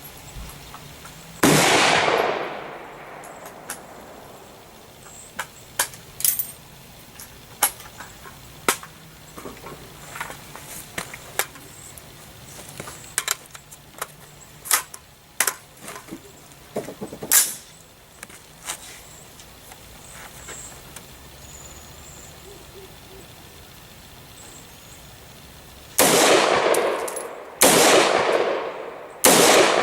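AR-15 pistol firing: a single shot about a second and a half in, with a long fading echo, then a stretch of light clicks and knocks. Near the end come three more shots, about a second and a half apart.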